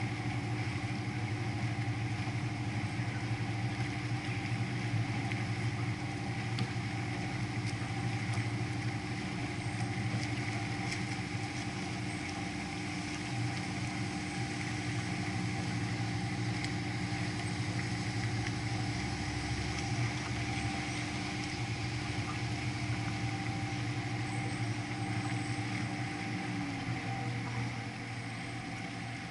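Canal tour boat's engine running steadily under way: a constant low hum with a steady tone above it. Near the end the tone dips slightly and the hum eases a little.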